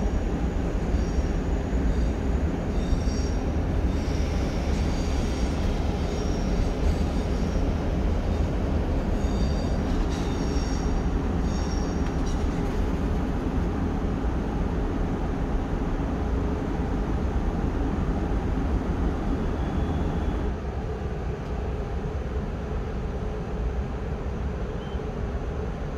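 Two SBB Re 420 electric locomotives standing with their equipment running: a steady low hum and rush of machinery noise, easing slightly about twenty seconds in, with short high chirps during the first half.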